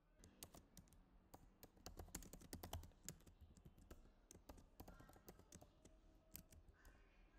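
Faint typing on a computer keyboard: quick, irregular keystrokes with short pauses between runs.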